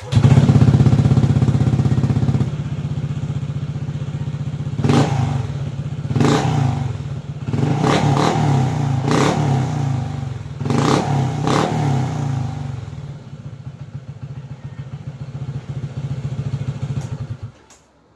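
Honda Click 160 scooter's single-cylinder four-stroke engine running through a TRC powerpipe aftermarket exhaust. It idles, is blipped in about six quick throttle revs in the middle, settles back to idle, and cuts off suddenly near the end.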